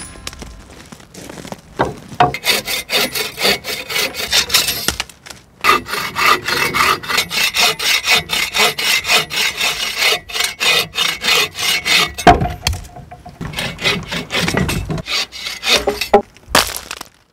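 Folding bow saw cutting through a branch log, in quick back-and-forth strokes of about three a second, in several runs with short pauses. A single hatchet chop into wood lands right at the start.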